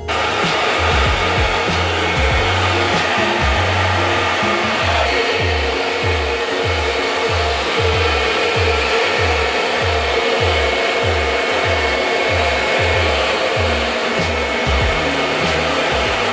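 Handheld hair dryer blowing steadily on a curly hairstyle, a loud even rush of air with a faint motor whine. A low beat of background music pulses about twice a second underneath.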